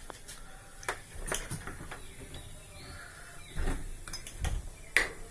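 Handling noise: a few scattered sharp clicks and a couple of low thumps, heard while the water heater is being plugged in.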